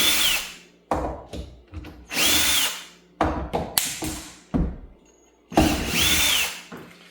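Power drill-driver backing out door hinge screws in three short runs, each whine spinning up and winding down, with sharp knocks and clicks in between.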